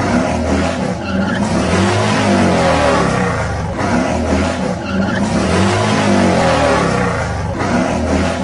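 Motor vehicle engine revving hard with tyres squealing and skidding, as in a burnout, the squeal swelling and easing several times.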